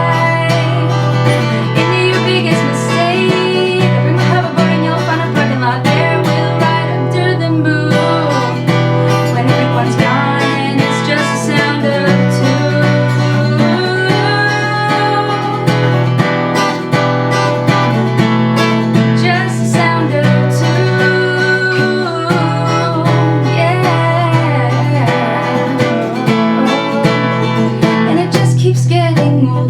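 Strummed acoustic guitar with a woman singing along to it.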